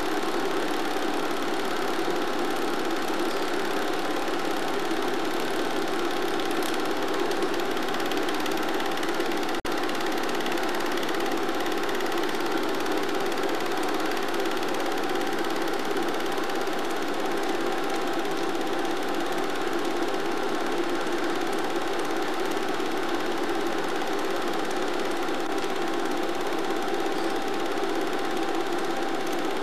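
A cine film projector running with a steady mechanical whirr and clatter whose pitch never rises or falls.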